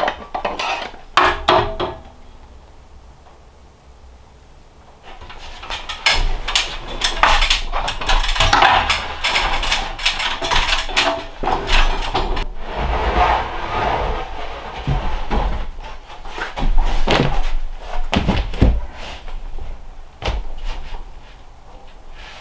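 Wooden knocking and clattering as charred pine ceiling boards are handled and fastened overhead. A few sharp knocks come at the start, then after a short lull a long run of dense, irregular knocks and thumps.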